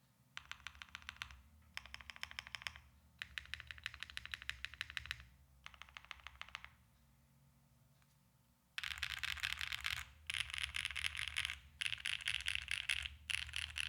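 QK65 V1 mechanical keyboard with Gateron Smoothies linear switches, a POM plate and GMK keycaps, its modifier keys pressed in four short runs of rapid keystrokes. After a pause of about two seconds, many keys are spammed at once in louder, denser bursts with brief breaks between them.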